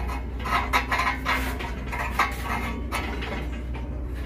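Metal screw cap being turned on the threaded filler neck of a welded steel fuel tank, giving a run of short, irregular clinks and scrapes, several a second.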